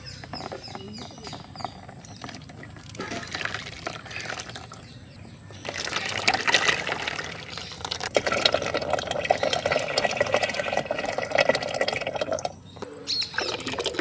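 Pomegranate and milk ice cream mixture poured from a steel mug into a plastic tray, splashing and bubbling into the liquid already there. It grows louder about six seconds in and breaks off briefly near the end before the next pour.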